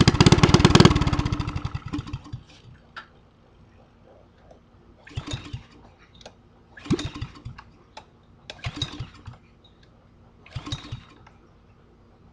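Small Honda go-kart engine being cranked to start: it fires and runs for a couple of seconds, then dies, and four more short start attempts follow about two seconds apart, each giving only a brief burst of firing without catching.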